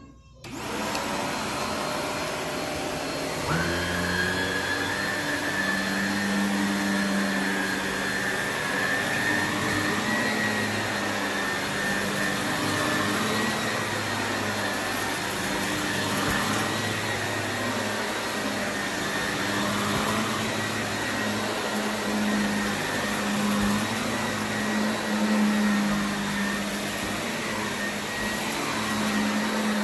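Shark vacuum cleaner switched on about half a second in, its motor spinning up and its tone stepping up a few seconds later. It then runs steadily on carpet with small swells in level.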